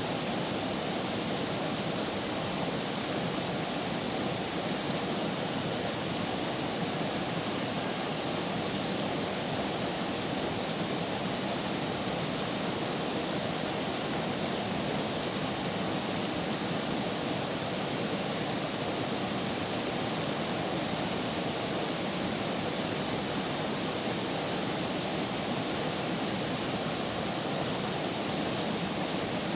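River water flowing, a steady, unbroken rushing noise.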